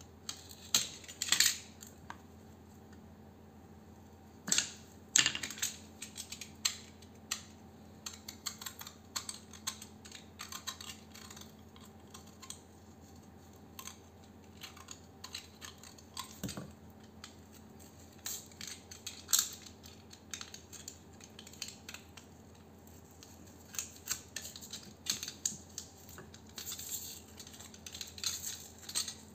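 Irregular sharp snips and clicks of cutting pliers working at a small transformer's copper windings and paper insulation, some louder snaps among many light ones.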